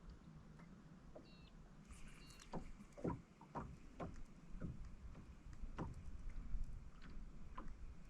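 Light, irregular knocks and taps against a small boat, with water lapping at the hull.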